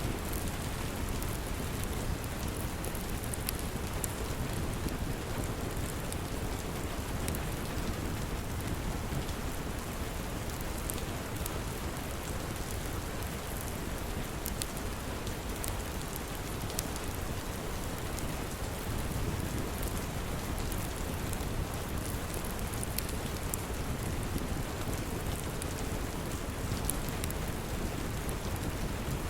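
Steady rain, with scattered sharp pops and clicks from a crackling wood fire.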